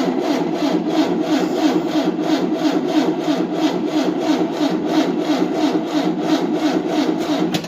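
1988 Tennant 255 Series II sweeper's engine being cranked by its starter for about eight seconds, turning over in an even rhythmic beat without firing, then stopping abruptly: a cranks-but-no-start, with the starter run off a jump booster.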